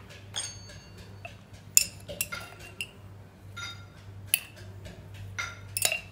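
Several sharp, scattered clinks of a spoon against a salt container and the steel pressure cooker as salt is scooped and added to raw rabbit meat, some ringing briefly. A low steady hum sits underneath.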